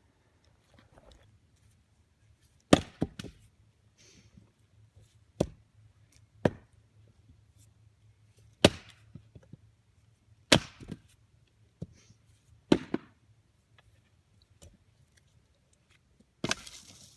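Sharp wooden knocks, about seven of them one to two seconds apart, several followed by a smaller knock, as firewood is struck or handled. A longer scraping rustle comes near the end. No chainsaw is running.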